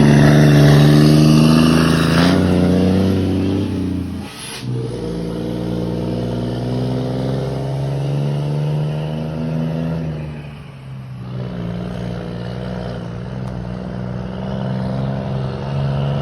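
Scania truck engine rumbling through its exhaust: loudest at the start, with an abrupt change in the note about four seconds in and a brief dip in level around eleven seconds.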